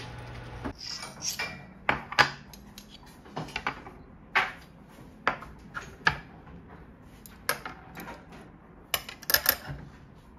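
Ceramic dishes and metal chopsticks and spoons being set down on a wooden table: a dozen or so irregular clinks and knocks. A steady hum cuts off suddenly just under a second in.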